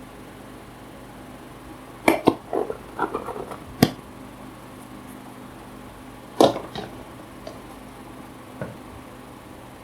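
A few sharp knocks and taps in two clusters, the first about two seconds in, the second past the middle, then a lone tap near the end, over a steady low hum.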